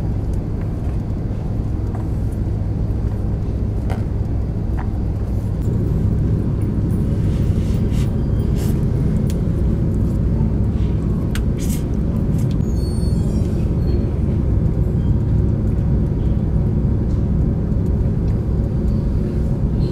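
Steady low drone of a car ferry's engines, heard from inside the passenger deck. A few short slurps of noodles come around the middle.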